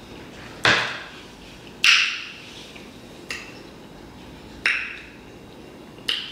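Five sharp clicking knocks, about a second and a quarter apart, each ringing out briefly.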